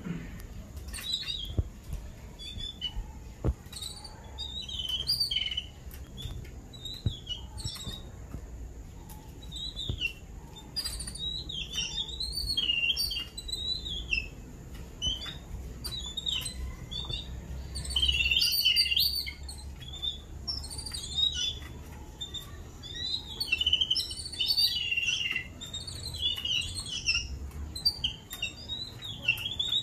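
A group of babblers chattering, with a dense run of short, squeaky, rising and falling calls that grows busier about a third of the way in and peaks about halfway.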